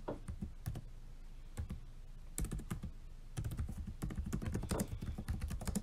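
Typing on a laptop's chiclet keyboard: rapid key clicks in bursts with short pauses between, the longest and densest run in the second half.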